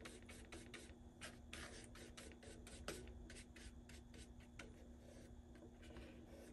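Faint, scratchy strokes of a paintbrush mixing paint on a paper plate, a few quick strokes a second.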